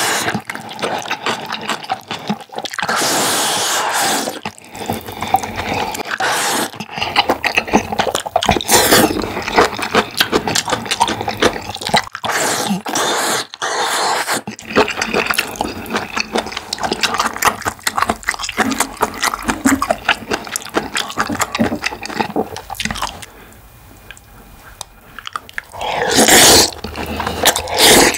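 Close-miked wet eating sounds from a mouthful of black bean sauce noodles: steady chewing with many small wet clicks. Two louder bursts come in, one a few seconds in and one near the end, and there is a brief quieter lull shortly before the second.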